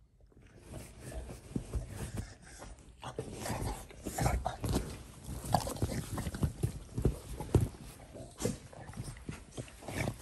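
Two Shar-Pei dogs play-wrestling on a couch: irregular scuffling and thumps with dog vocal sounds. It starts quiet and gets busier and louder a few seconds in.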